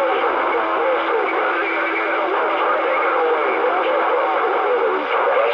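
CB radio receiving a crowded channel: a jumble of faint, overlapping, warbling transmissions over steady static, with a steady tone that drops out about five seconds in.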